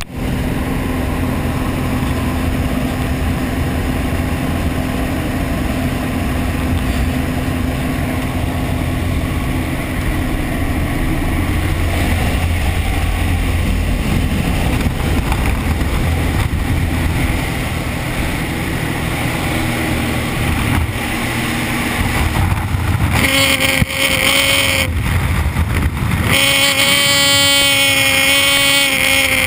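Jump plane's engine and propeller running steadily with wind rushing through the open door. About three-quarters of the way through, a steady high-pitched tone joins, drops out briefly, then returns until the end.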